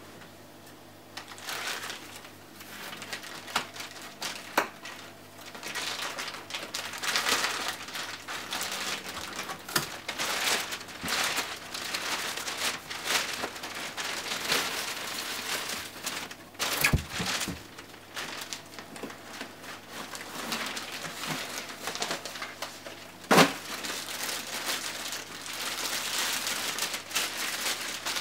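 Clear plastic bags and packing crinkling and rustling as they are handled and pulled out of a cardboard box, with scattered small knocks and one louder knock near the end.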